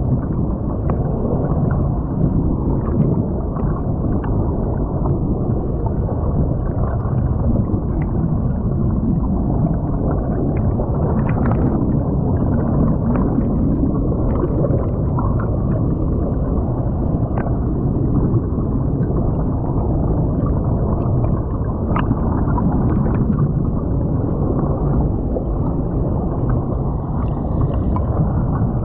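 Flowing creek water heard underwater through the submerged camera of a crashed FPV drone: a steady, muffled low rush and gurgle, with scattered faint ticks.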